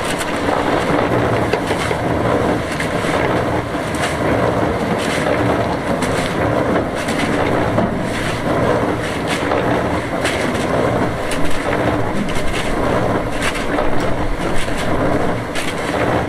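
Portable cement mixer turning a batch of concrete made of cement, sand and gravel: a steady motor hum under the constant rattle and slosh of stones tumbling in the drum.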